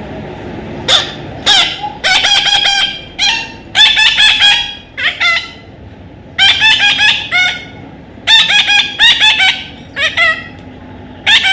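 A parrot calling: harsh, high-pitched calls in quick runs of several at a time, with short pauses between the runs.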